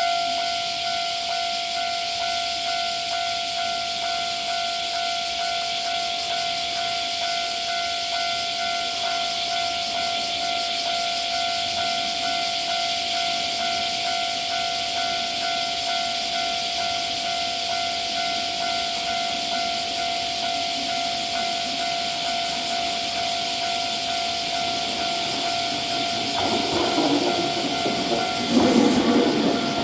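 Japanese level-crossing alarm ringing its steady, evenly repeating electronic bell tone over a constant high hiss. Near the end the rumble of an approaching train rises under it.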